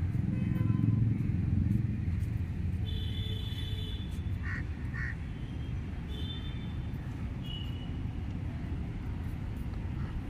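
City street traffic: a steady low rumble of passing vehicles, with two short honks about four and a half seconds in and a few brief higher beeps scattered through.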